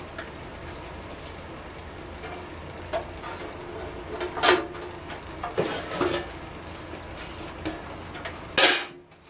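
Metal parts clinking and clanking against a metal tank: a rusty hood latch being handled at an ultrasonic cleaner. There are a handful of scattered knocks, the loudest about four and a half and eight and a half seconds in, over a steady low hum.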